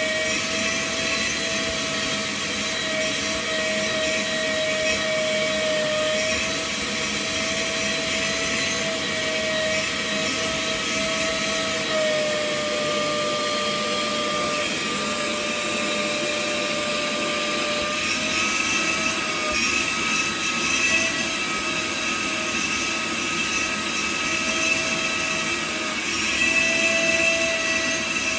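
Vacuum cleaner running steadily with a whining motor, its pitch dropping slightly and rising again a few times.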